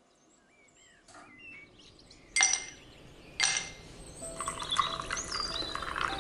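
Two sharp clinks of ice cubes dropping into a glass tumbler, about a second apart, then fizzy liquid poured over the ice, pouring and fizzing, with faint birdsong chirping behind.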